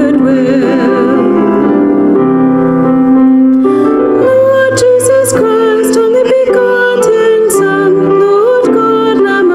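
Sung church music: a voice singing a slow melody over keyboard accompaniment.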